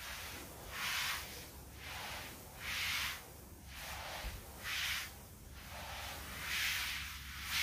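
Greenhouse sprinkler spraying water over soil-filled seedling trays: a hiss that swells and fades about once a second, every other swell louder.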